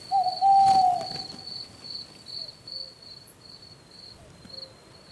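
Crickets chirping in a steady, pulsing trill throughout, with a single owl hoot of about a second near the start that falls slightly in pitch and trails away.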